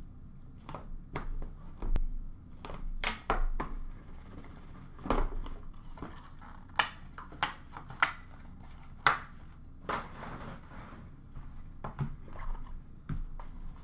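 A sealed cardboard trading-card box being opened and its contents handled: a run of sharp clicks and taps, with short rustles of cardboard and packaging.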